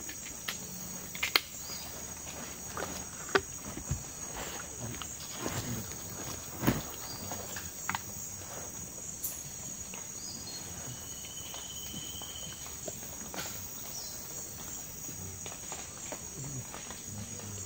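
Steady high-pitched chorus of rainforest insects, with a few sharp clicks and knocks scattered through it and a brief thin whistle about two-thirds of the way through.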